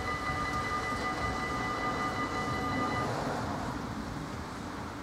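Level crossing warning bell ringing rapidly as the barriers lift, then cutting off about three seconds in, over a low rumble.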